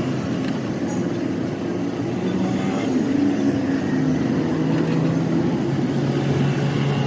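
A motor running steadily: a low drone whose pitch shifts slightly about halfway through.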